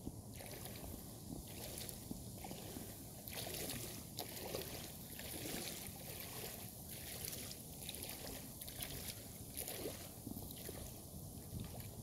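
Floodwater sloshing and splashing around someone wading through it, surging in a rough rhythm about once a second with each step.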